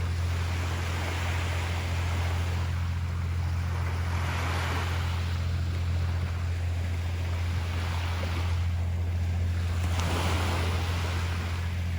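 Ocean waves washing onto a beach, the surf hiss swelling three times (about a second in, around four to five seconds, and near ten seconds), over a steady low rumble.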